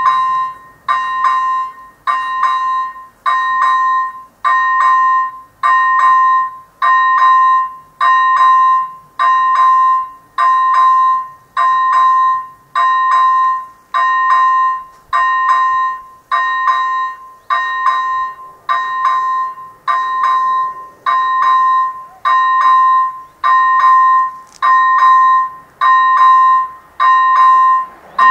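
AŽD 97 level-crossing warning signal with its first-generation electronic bell ringing loudly, a pitched ding about once a second that starts as the red warning lights begin flashing. It is the warning that a train is approaching the crossing.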